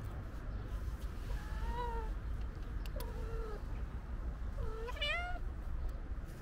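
A cat meowing three times, about a second and a half apart, the last meow the loudest. A low steady rumble runs underneath.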